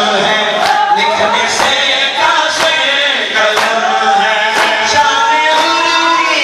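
A male reciter sings a noha, a Shia lament, into a microphone, with other men's voices joining. A sharp slap about once a second keeps time under the singing.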